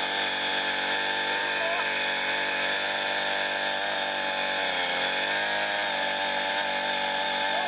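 A motor running steadily with an even pitched hum, the pitch sagging briefly about five seconds in and then recovering.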